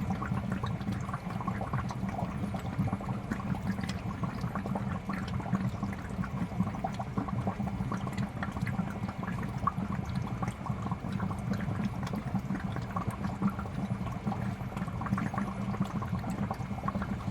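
Aquarium air bubbler releasing a steady stream of bubbles that gurgle and pop at the water surface, over a low hum.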